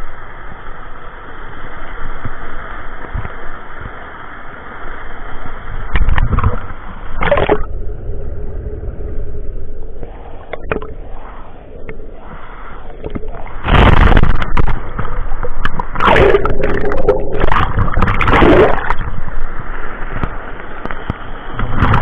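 Water splashing and gurgling close against the microphone as it goes in and out of a river pool, muffled while under the surface. The splashing is loudest about six seconds in and again from about fourteen to nineteen seconds in.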